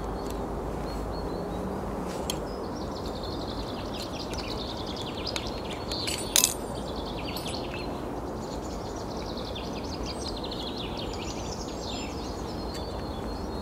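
Outdoor ambience: a steady low background hum with a small songbird singing short repeated phrases. About six seconds in there is a single sharp clink as the aluminium camping cook pots are handled.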